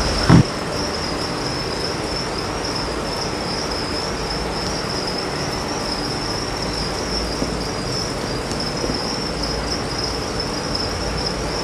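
Crickets chirping in a continuous high trill, with one short thump about a third of a second in.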